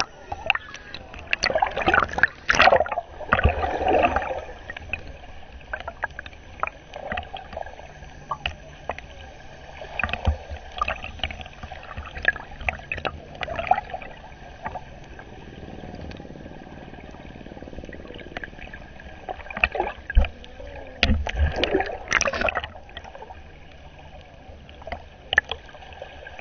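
Water sloshing and gurgling around a camera held underwater in shallow sea, heard muffled through the housing, with irregular louder surges and splashes, the biggest a couple of seconds in and again about twenty seconds in.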